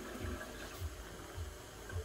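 Faint kitchen background with a few soft, low thuds about every half second.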